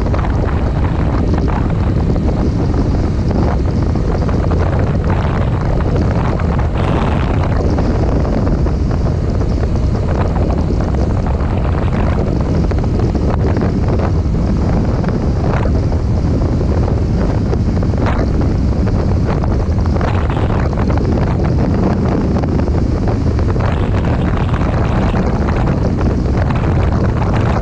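Motorcycle riding at highway speed: steady wind buffeting on the microphone over the bike's engine and road noise.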